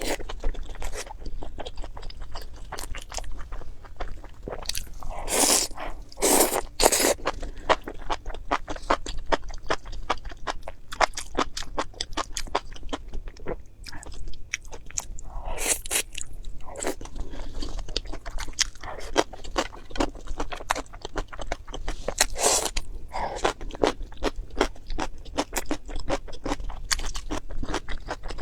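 Close-miked eating: a person biting, crunching and chewing food, a dense run of crackly clicks with louder crunchy bites about five to seven seconds in, around fifteen seconds and around twenty-two seconds.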